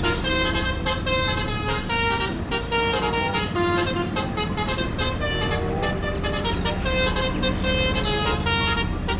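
Indonesian 'telolet' bus horn, a multi-tone horn playing a quick tune of short notes that jump between pitches, over the rumble of the coach's engine and road noise.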